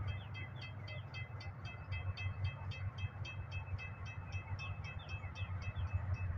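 EMD GP18 diesel locomotive with a 16-cylinder 567 engine, working hard on a 1% upgrade, heard as a steady low rumble. Over it is a fast, even ringing of about four strokes a second.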